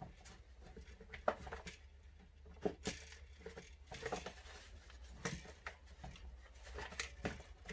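Scattered clicks, taps and scrapes of the plastic starter housing and handle of a Stihl MS 170 chainsaw being handled and eased off, over a steady low hum.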